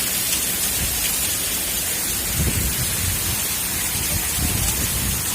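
Heavy downpour of rain and hail in a windstorm: a loud, steady hiss, with low rumbles swelling about two and a half and again about four and a half seconds in.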